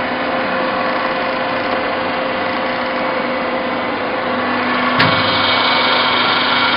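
Sawdust pallet block making machine running with a steady mechanical hum. A sharp click comes about five seconds in, after which the running noise is a little louder.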